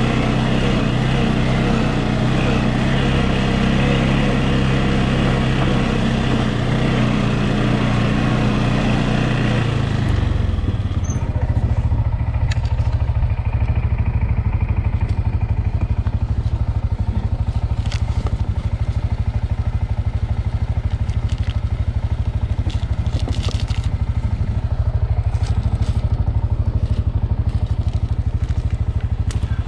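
ATV engine running hard for about ten seconds, then settling to a steadier, lower drone, with scattered clicks and knocks over it.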